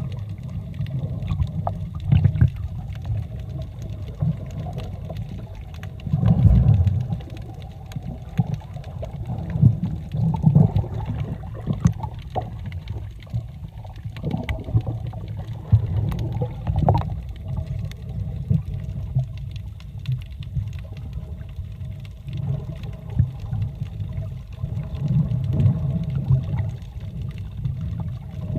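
Muffled underwater sound while snorkeling: a low, surging rumble of moving water that swells and fades unevenly, with scattered small clicks and knocks.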